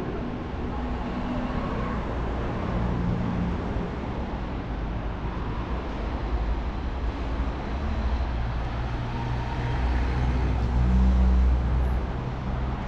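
City street traffic: cars and other motor vehicles driving past with a steady engine hum and tyre noise, louder as a vehicle passes near the end.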